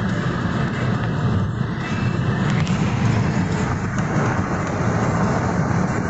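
A car driving at steady speed: a constant rush of road and wind noise heard from inside the car, heaviest in the low range.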